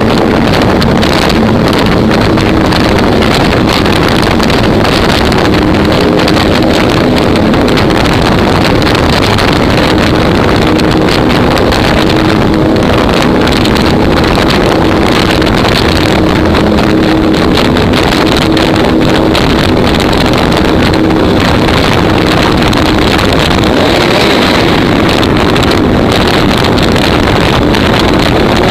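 Engine running loud and steady while under way, with wind buffeting the microphone.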